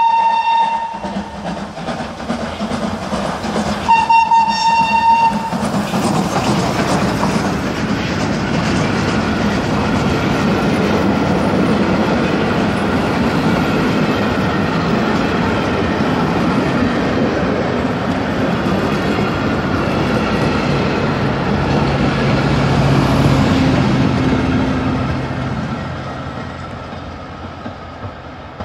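Steam locomotive whistle, one steady note that ends about a second in and sounds again briefly about four seconds in. Then the steam train runs past close by, a loud steady rush of steam and the rumble of wheels and carriages, fading near the end as it draws away.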